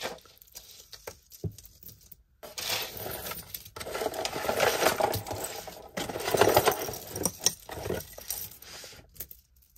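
Metal costume jewelry clinking and jangling as pieces are rummaged through by hand: a few scattered clicks at first, then a busy run of small metallic jingles from about two seconds in, dying away near the end.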